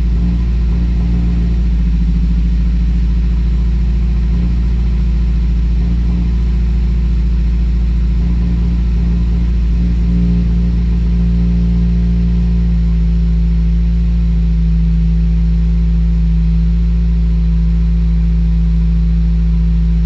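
2017 Subaru WRX's turbocharged 2.0-litre flat-four idling after a cold start, unsteady for the first ten seconds or so and then settling into a steadier idle. The roughness is a cylinder 3 misfire (code P0303) that shows up on cold starts.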